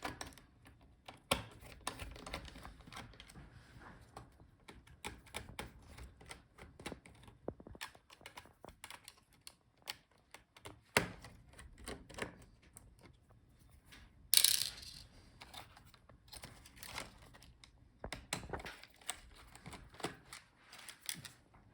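Scattered small clicks and taps of a screwdriver backing out the laptop's motherboard screws, with a louder short clatter about fourteen seconds in.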